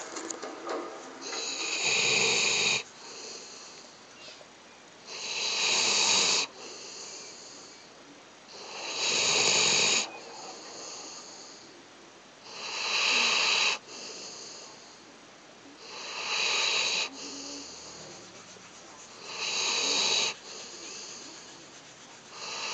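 Snoring: a loud snore about every three and a half seconds, seven in all, with quieter breathing sounds between.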